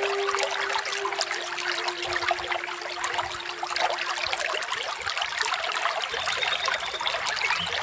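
Small waterfall splashing and trickling steadily. A low held tone sits underneath for the first half.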